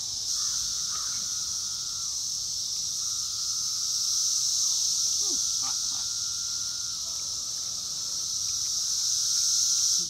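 Loud chorus of 17-year periodical cicadas: a steady high-pitched drone from thousands of singing males, with a lower droning tone that wavers in and out. A few short falling calls sound over it around the middle.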